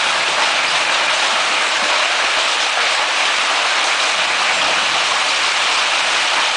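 Golf-ball-size hail coming down hard, a dense steady din of stones striking the patio, boat dock and lake with no let-up.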